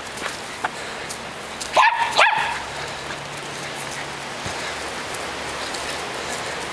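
Small dog giving two quick, sharp barks about two seconds in while playing with a ball.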